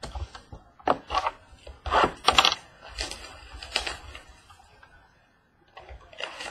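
A trading-card mini box and its foil wrapper being handled and torn open: a run of sharp crinkles and rustles, loudest about two seconds in, with a lull about five seconds in.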